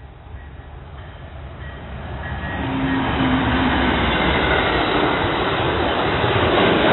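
Amtrak Empire Builder passenger train passing close by: its rumble and wheel noise swell sharply about two and a half seconds in, then hold loud and steady.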